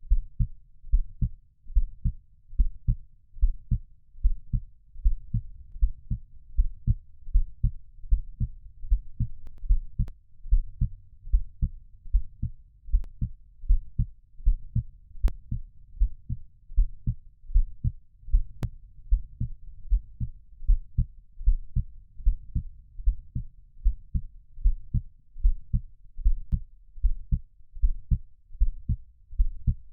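Heartbeat, low muffled thumps in a steady lub-dub rhythm of paired beats.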